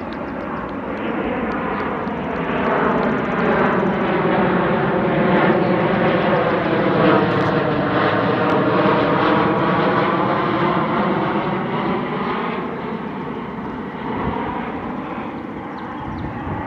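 Airplane passing overhead: engine noise swells to its loudest about halfway through, then fades slowly.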